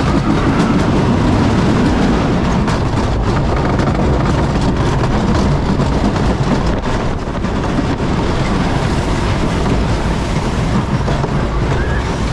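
Wooden roller coaster train running along the track in its final stretch: a continuous loud rumble of the wheels with frequent rattling clacks from the wooden track.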